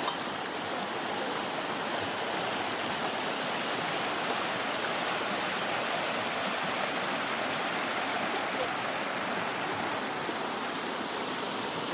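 Running water of a stream by a small waterfall: a steady, even rush that does not change.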